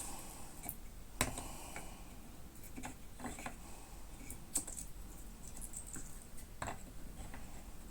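Light, irregular clicks and small scrapes of hand tools working a small wooden sanshin tuning peg (karakui), roughly one sharp tick a second.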